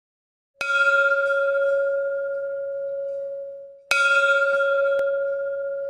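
A bell struck twice, about three seconds apart, each stroke ringing on in a clear tone that slowly fades.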